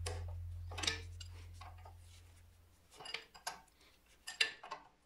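Background music fading out, with scattered light metallic clinks of an open-end spanner on a bolt in a Zetor 4712 tractor's rear housing, a few short clinks about a second in and more later on.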